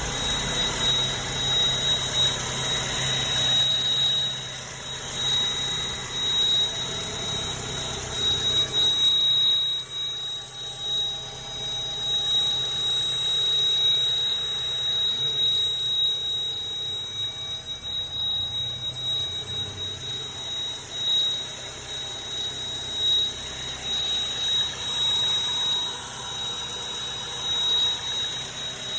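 2013 Mazda 3 idling cold with a steady, thin, high-pitched ringing whine that holds one pitch and wavers slightly in strength over the low idle hum. It comes from the right side of the engine bay, away from the main belt, and occurs only at low idle when cold. The owner wonders whether a belt, a seal or a vacuum leak is the cause.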